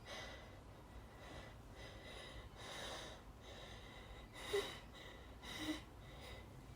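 A woman's quiet breathing and sniffing, with two short catching gasps about four and a half and five and a half seconds in: the hitching breath of a sneezing fit brought on by dust.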